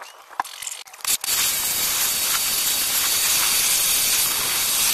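Jet of water from a handheld spray nozzle hissing steadily against a soapy alloy wheel, rinsing it off. The spray starts about a second in, after a few light knocks.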